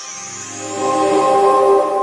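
Logo intro music: a held, chiming chord that swells a little under a second in and then starts to die away.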